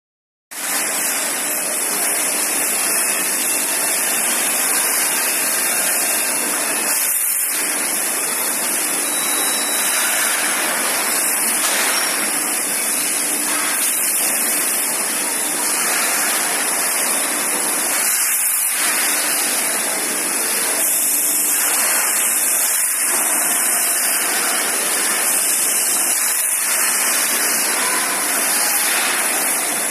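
Steady factory-floor machinery noise on an air-conditioner assembly line, an even rushing hum with no distinct strokes, starting about half a second in.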